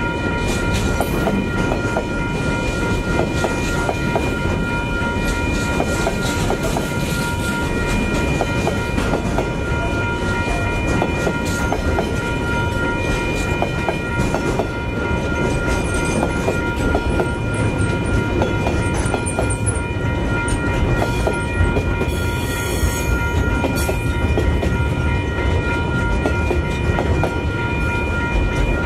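Wagons of a long, heavily loaded container freight train rolling past in a steady rumble, with scattered clicks of wheels over rail joints. Several steady high tones ring through it the whole time.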